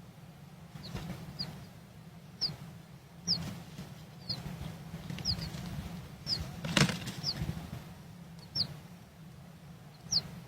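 A bird giving short, high, downward-sliding chirps about once a second, mixed with a few brief rustling thumps, the loudest about two-thirds of the way through, over a steady low hum.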